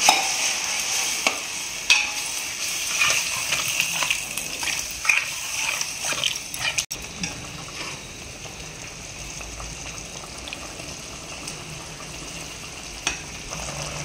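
A metal spoon scraping and clinking against a steel kadai as a thin dried-fish (karuvadu) gravy, just watered, is stirred. After a cut about seven seconds in come steadier, quieter bubbling and hiss of the gravy coming to a boil, with one more clink near the end.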